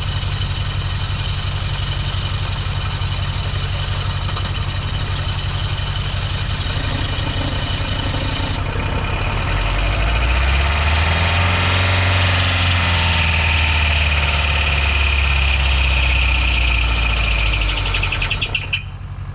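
Chevy Aveo engine, its crankcase filled with water instead of oil, running with the key held and the throttle floored. About halfway through it gets louder and its pitch rises and falls, then it dies abruptly near the end, which sounded like the engine locking up.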